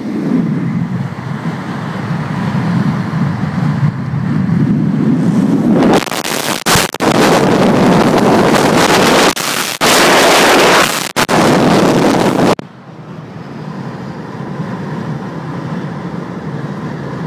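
Wind buffeting the microphone, a steady rumble that turns into heavy full-range gusts about a third of the way in, cutting in and out abruptly, before dropping back to a lower rumble.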